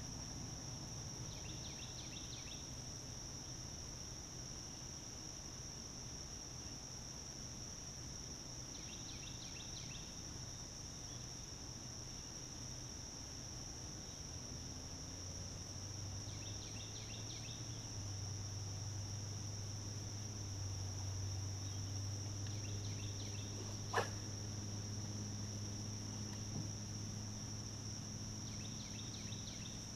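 Steady, high-pitched insect chorus, with a short pulsed call repeating about every seven seconds. A low hum comes in about halfway, and there is a single sharp click about six seconds before the end.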